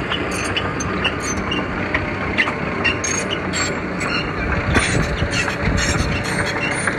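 Mini crawler bulldozer working: its diesel engine runs steadily under a continuous clatter of clinks and squeaks from the steel tracks.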